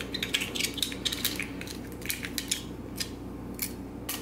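Canon FTb 35mm film camera being handled as its back cover is unlatched and swung open: a run of small, irregular metallic clicks and rattles.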